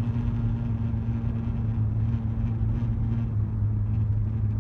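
Inside a 2015 Ford Explorer's cabin, with a steady low hum over road and engine noise.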